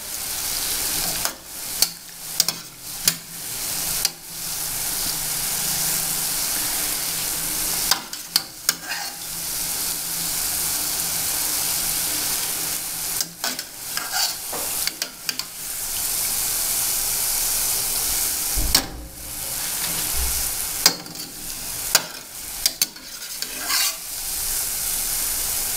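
Bolinhos de chuva dough balls deep-frying in oil over medium heat in an aluminium pan: a steady sizzle that dips briefly several times. Short clicks and scrapes of a metal spoon against the pan come through the sizzle.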